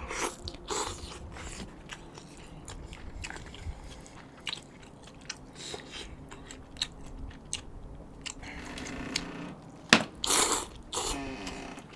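A person chewing seafood spicy noodles (jjamppong) close to the microphone, with many small wet mouth clicks, and a louder stretch of eating noise with a sharp click near the end.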